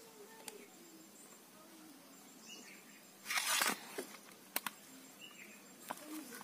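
A hand rubbing chilli and turmeric powder into small raw fish on a perforated steel plate: a short loud scraping rustle about halfway through, then a few light clicks against the metal plate.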